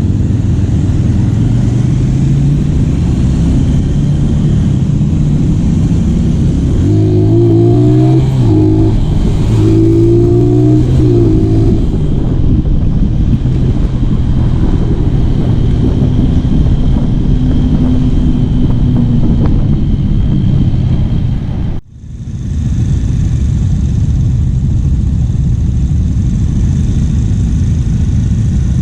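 Modified Honda Tiger motorcycle engine running under way, with wind noise on the microphone. Its pitch rises and falls several times about a third of the way through as the throttle is worked, and the sound cuts out for an instant about three quarters through.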